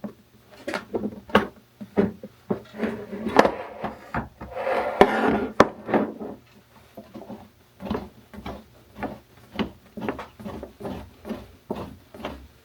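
Parts being handled and fitted together by hand: a string of knocks and clicks, with a longer scraping rub from about four and a half to six seconds in.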